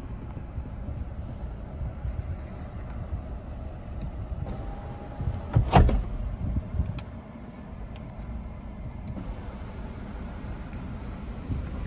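Power sunroof motor of a GMC Terrain running steadily from about three-quarters of the way through, over a low rumble, with one sharp click near the middle.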